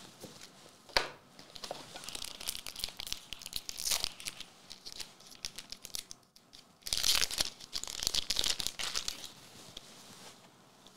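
Trading card booster pack being torn open and its wrapper crinkled: a sharp click about a second in, then two spells of crackly rustling, the second louder.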